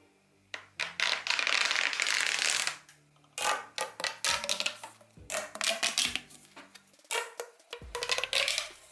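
Small plastic toys and packaging being handled: a run of sharp clicks and taps with stretches of crinkly rustling, the longest about a second in, over faint background music.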